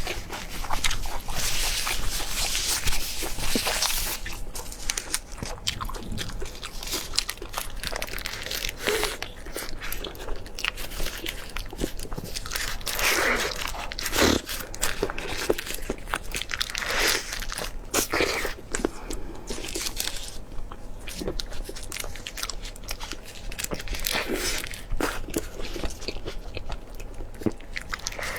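A person eating close to the microphone: biting, crunching and chewing in an irregular run of wet mouth clicks and crunches.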